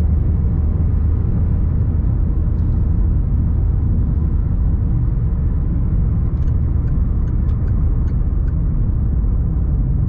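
Steady low rumble of a van driving at road speed, heard from inside the cabin: engine and tyre noise with no change in pace. A few faint light ticks come through a little after halfway.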